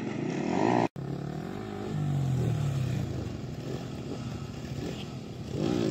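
Motorcycle engines revving as riders hold wheelies on a practice pad, the engine note falling and rising with the throttle, with a brief cut in the sound about a second in.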